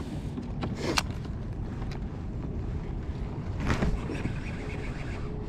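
Wind rumbling on the microphone on open water, steady throughout. Two short sharp sounds come through, about one second in and near four seconds in.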